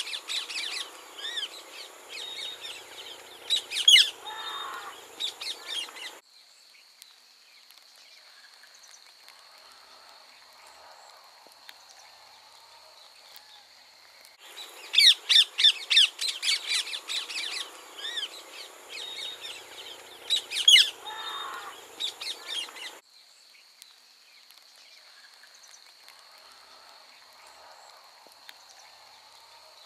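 Rose-ringed parakeets calling in rapid, shrill squawks, in two bursts of several seconds each, the first ending about six seconds in and the second starting about fifteen seconds in; between the bursts only a faint, steady high whine remains.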